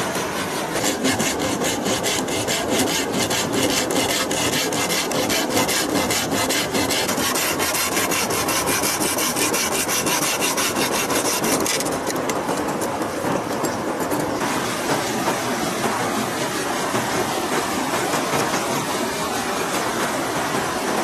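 Small hand saw cutting through a green bamboo pole in quick, even back-and-forth strokes, over the steady rush of river rapids. The sawing stops about twelve seconds in, leaving only the rushing water.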